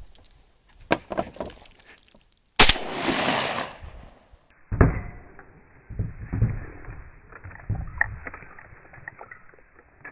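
A single shotgun shot about two and a half seconds in, its report rolling away for a second or two. Scattered knocks and bumps follow.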